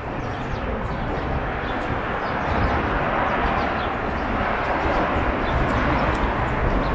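Steady background noise of city traffic, swelling slightly a few seconds in.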